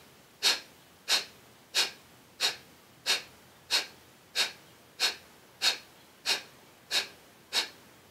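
Kapalbhati (breath of fire) breathing: a steady run of short, forceful exhalations snapped out through the nostrils, about three puffs every two seconds, evenly spaced, each a sharp hissing burst.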